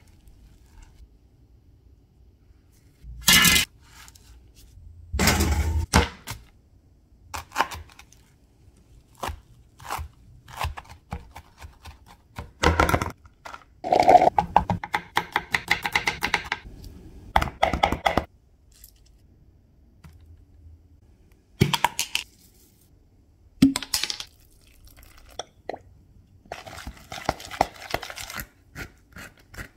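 Kitchen food-prep handling sounds: scattered knocks, scrapes and clatter of food and containers on a countertop, coming in irregular clusters. Near the end, a spoon scrapes steadily as it stirs chimichurri in a plastic tub.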